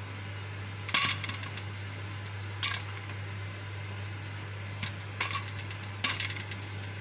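Dried figs dropped one by one into a couscoussier steamer basket: about five light, sharp knocks at uneven intervals, the first about a second in the clearest, over a steady low hum.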